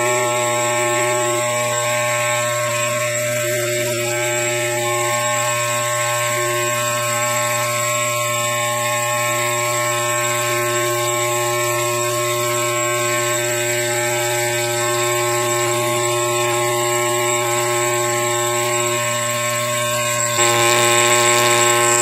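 Pneumatic air scribe buzzing steadily as its needle chips concretion rock away from a fossil crab's shell. The pitch shifts slightly near the end as the tool is lifted off the rock.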